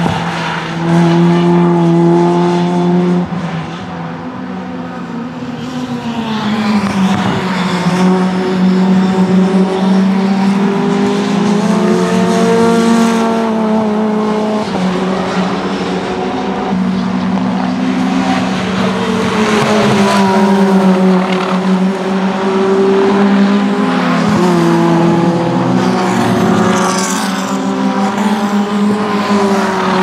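Mitjet 2.0 race cars' Renault 2.0-litre four-cylinder engines at racing speed. The engine note rises and falls again and again as the cars accelerate, shift gears and brake through the corners.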